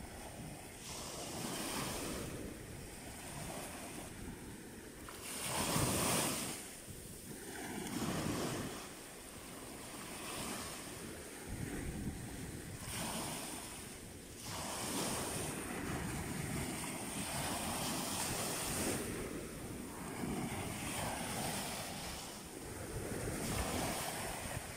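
Small waves breaking and washing up a sandy beach, the surf swelling and easing every few seconds, the strongest surge about six seconds in. Wind buffets the microphone.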